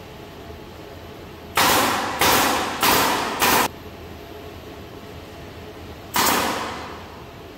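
Pneumatic nail gun firing into the plywood wall of a table, each shot a sharp crack with a short puff of air: four shots in quick succession, about 0.6 s apart, then one more a few seconds later.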